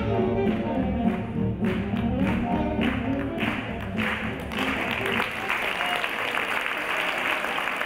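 A live swing big band plays up-tempo with a steady beat and ends about halfway through. Applause follows.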